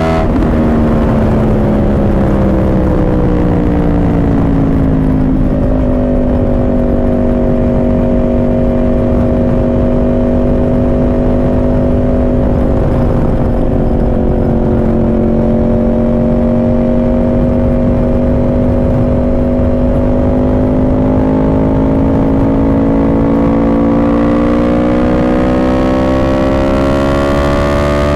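Yamaha R1 inline-four sport bike with a Yoshimura exhaust, heard from on board under way. The engine note sinks for about five seconds as the bike rolls off and steps up at a downshift. It then holds steady before climbing as the rider accelerates near the end. A rush of wind noise runs underneath.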